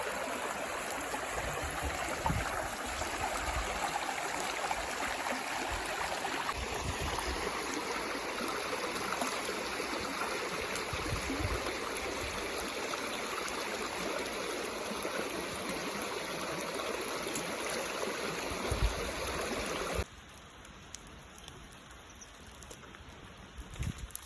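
River water flowing and rushing steadily over rocks, with a few low thuds underneath. About 20 seconds in it cuts off to a much quieter scene with faint light ticking.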